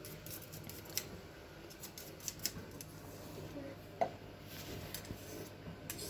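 Irregular light clicks and ticks of kitchen utensils being handled, with a few sharper clicks about a second in, near two and a half seconds, and about four seconds in.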